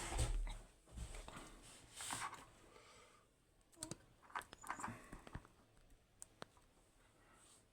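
Faint handling of a picked pin tumbler lock and its picking tools: soft rustles, then a handful of sharp small clicks between about four and six and a half seconds in.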